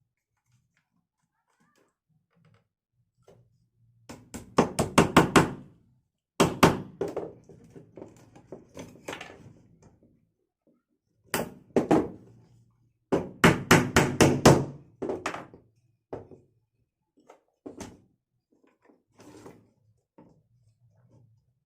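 Wood being tapped and knocked in quick runs of several sharp strikes, twice, with single knocks between and fainter scattered knocks near the end, as small wooden bird-cage parts are worked and fitted.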